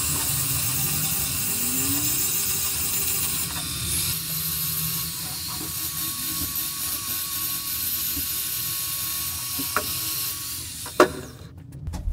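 Angle grinder with a sanding disc running steadily while sanding a steel vise part. It stops shortly before the end, followed by a sharp knock.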